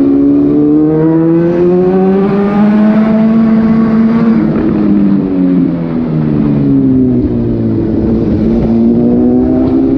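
Suzuki GSX-S750's inline-four engine through an SC-Project slip-on exhaust with the dB killer removed. The revs climb slowly for about four seconds, fall back, hold steady, and rise a little again near the end.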